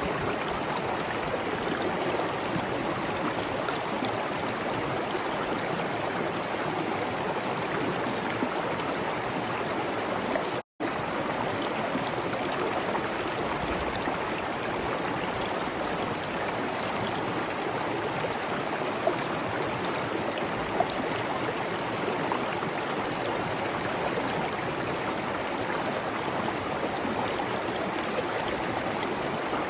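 Waterfall: a steady, dense rush of falling water. There is one very brief dropout to silence about a third of the way in.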